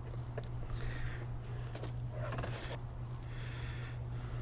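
Hands handling an LED headlight's wiring and plastic connectors: patches of faint rustling and a few small clicks over a steady low hum.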